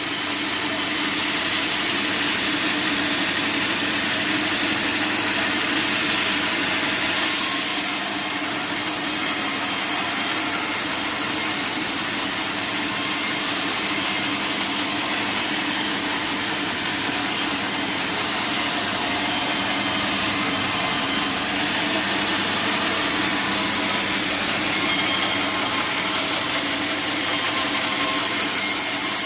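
Sawmill band saw cutting through teak wood, a steady continuous sawing noise, with a brief louder surge about seven seconds in.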